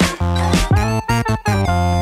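Background music: an electronic track with synth, heavy bass and a beat.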